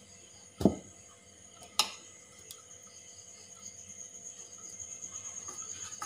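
Two sharp knocks, the first and louder one about half a second in, then a soft rustle that grows toward the end as hands work water into flour in a steel mixing bowl for parotta dough.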